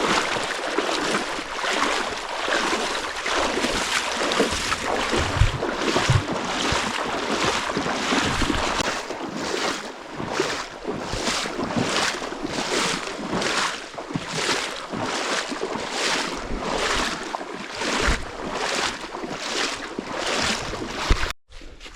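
Footsteps sloshing through shallow swamp water, an even rhythm of splashing strides a little under two a second, which cuts off suddenly near the end.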